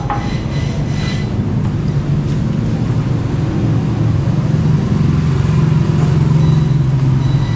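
A motor vehicle engine running steadily, a continuous low rumble.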